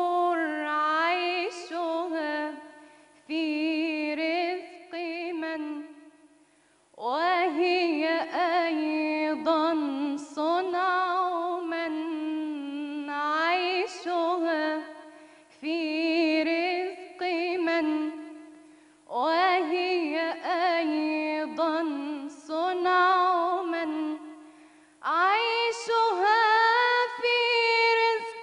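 A woman singing an Islamic religious nasheed solo, with no instruments, in long ornamented phrases of wavering held notes with brief breaths between them; the last phrase climbs higher.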